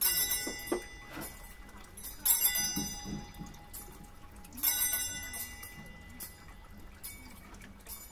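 Altar bells rung three times at the elevation after the consecration, each a bright ringing stroke that fades over a second or two.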